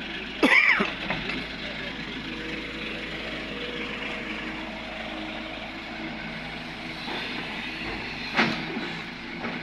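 Heavy earthmoving machinery running at a steady pitch. A short, loud, bending squeal or call comes about half a second in, and a sharp knock comes near the end.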